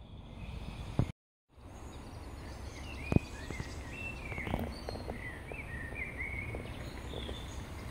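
Small woodland birds singing, with short chirps and whistled notes that come thick from about two and a half seconds in, over a steady low background rumble. The sound drops out completely for a moment about a second in. A sharp click about three seconds in is the loudest thing.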